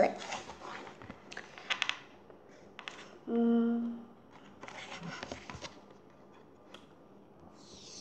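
A hardcover picture book being handled, with rustling of the pages and cover and a few light clicks. A short hummed note from the girl about three and a half seconds in is the loudest sound.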